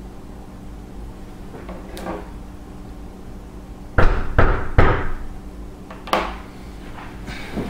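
Sharp knocks and clacks of hard objects being handled: three loud ones in quick succession about four seconds in, then two lighter ones. A steady low hum runs underneath.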